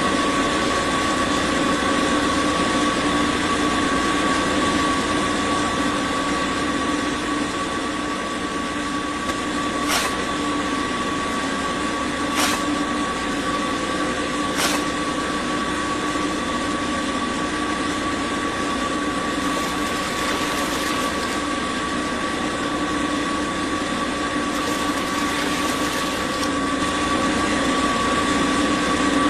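Small DC motor of a DIY model construction machine running steadily with a constant high whine over a lower hum. Three sharp clicks come a couple of seconds apart near the middle.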